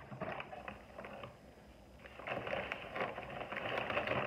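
Paper napkin being handled: a few scattered crinkles at first, then dense, steady crinkling and rustling for the last couple of seconds.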